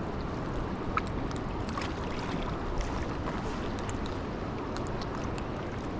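Steady rushing of a fast river current, with scattered faint, irregular ticks over it.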